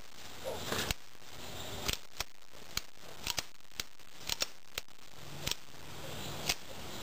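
A dozen or so small, sharp metallic clicks at irregular intervals from a .380 semi-automatic pistol being handled after a misfire: a Hornady Critical Defense round whose primer the hammer dented without setting it off.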